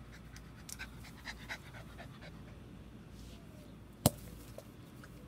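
Small Corgi-Chihuahua mix dog panting in short irregular breaths, with a single sharp click about four seconds in.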